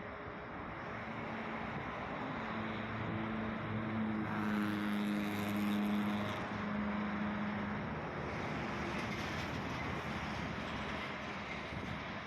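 A vehicle engine running with a steady hum over outdoor traffic and wind noise. It is loudest in the middle and fades out after about eight seconds.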